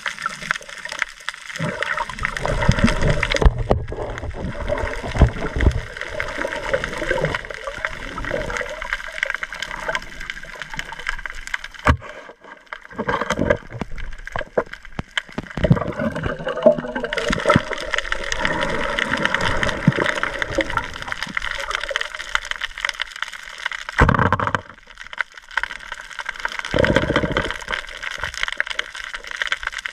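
Water gurgling and rushing, heard muffled through a submerged camera, in irregular swells with no steady rhythm.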